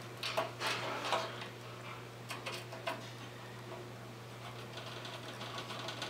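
Hands handling cables and small parts inside a metal PC case: light clicks and scrapes, mostly in the first three seconds and again near the end, over a steady low hum.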